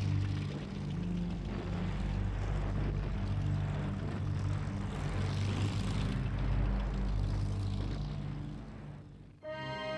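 Steady low engine drone and noise of tanks on the move, laid over battle footage, fading down about nine seconds in. Music cuts in just before the end.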